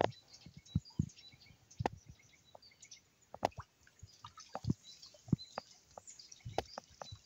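A dog's paws splashing in shallow creek water as it wades, a dozen or so separate short splashes. Small birds chirp faintly and high throughout.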